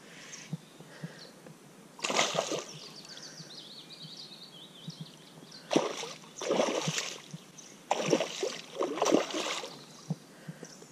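A hooked pike thrashing at the water surface beside the boat, splashing in three bursts: once about two seconds in, then twice in quick succession in the second half. A faint high whine steps downward between the first and second splashes.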